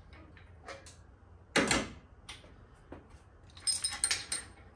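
Engine hoist chain and hook clinking and rattling about three and a half seconds in, after a single loud metal knock about a second and a half in, as the hung engine and transmission are settled into the bay and unhooked.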